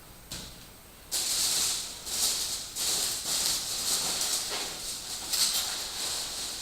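Hands rummaging through styrofoam packing peanuts in a cardboard box: a dense, uneven rustling and crackling that starts about a second in.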